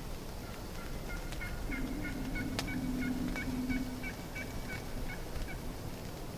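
Turkey yelping: a steady run of about eighteen short, dropping yelps, roughly three a second, with a lower wavering sound beneath part of it and one sharp click near the middle.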